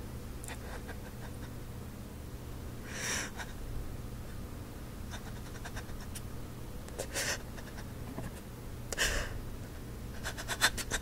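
A person breathing out heavily three times, short breathy puffs a few seconds apart, over a low steady hum of handheld phone-recording noise, with a quick run of small clicks near the end.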